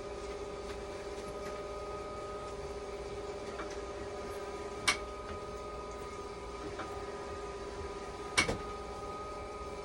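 Dialysis machine running under test: a steady hum of several fixed tones, with two sharp clicks, about five seconds in and near the end.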